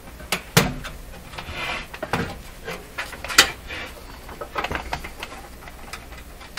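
Irregular knocks and clunks with a short scrape about a second and a half in, as the Hallicrafters S-40A receiver's chassis is tugged at inside its cabinet; it is still held and does not come free.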